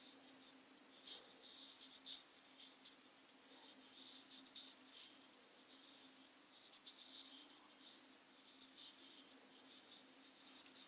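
Near silence: faint scratchy rustling and scattered light clicks of fingers handling and turning a small limewood salt cellar, over a faint steady hum.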